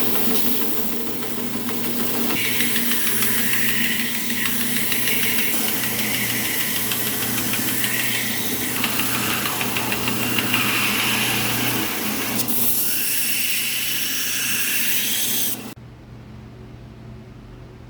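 Power sander running on a knife blade: a steady motor hum under a gritty abrasive hiss that rises and falls as the blade is worked against it. It stops suddenly near the end, leaving a faint hum.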